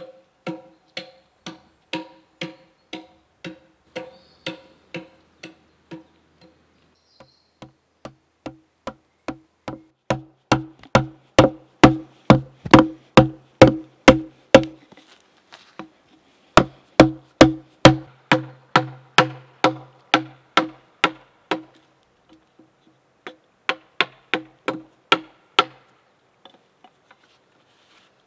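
Wooden mallet striking a gouge carving into a log: a steady series of knocks, each ringing at the same note, about two a second, growing quicker and louder about ten seconds in, with brief pauses and stopping near the end.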